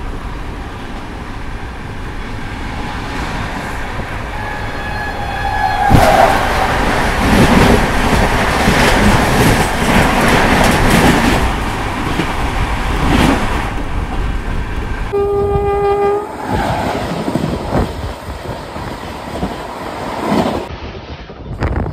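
Train running on the rails, a loud rushing and clattering that swells about six seconds in. A train horn sounds briefly at about fifteen seconds, with a fainter horn-like tone shortly before the swell.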